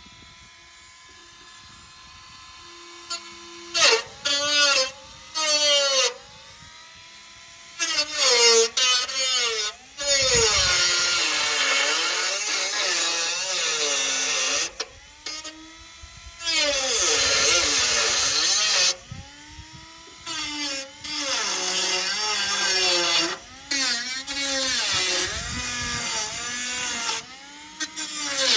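Dremel rotary tool cutting the car's sheet steel in repeated bursts, its high whine dipping in pitch as the cut loads the motor and rising again as it frees, with short pauses between passes.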